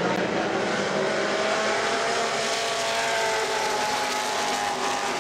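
Dirt-track Super Street stock cars racing together at speed, their engines running hard in a dense, steady noise. The engine note climbs gradually as they come off the turn.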